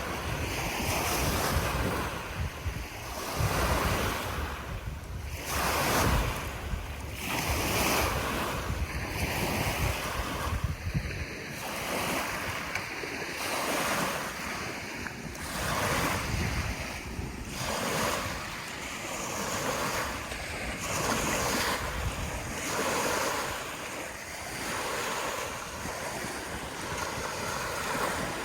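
Small waves washing onto a lake shore, one surge after another every second or two. Wind buffets the microphone with a low rumble, mostly in the first half.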